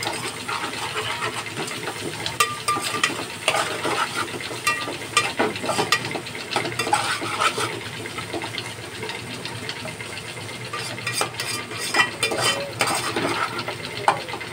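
A spoon stirring and scraping around a metal pot of frying onion, capsicum and chilli chicken, with irregular clinks against the pot over a steady sizzle.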